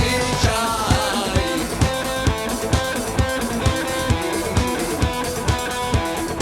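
Instrumental passage of a rock song: guitars play over a steady drum beat of about two hits a second.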